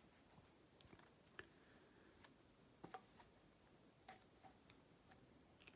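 Near silence: room tone with about ten faint, irregularly spaced small clicks.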